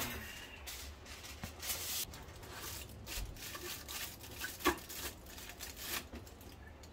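Aluminium foil being folded and pressed around a fish parcel by hand: irregular crinkling and rustling with scattered sharp crackles.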